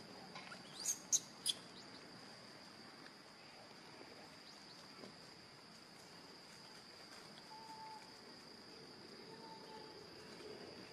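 Steady high-pitched insect drone, with three short sharp high chirps about a second in.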